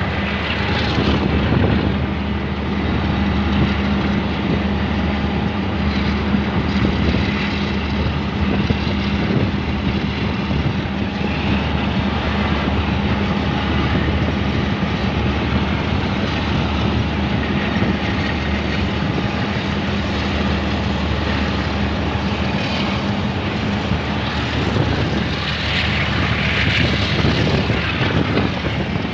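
Diesel locomotive under way: a steady engine drone over the noise of wheels running on the rails, with wind rushing past the microphone held out of the side of the locomotive, swelling briefly near the end.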